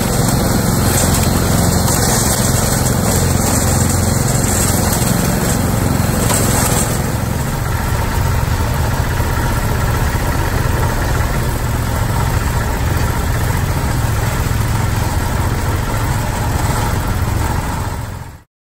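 Rail-mounted mower's small gas engine running steadily under load as it mows along the track, then cutting off suddenly near the end.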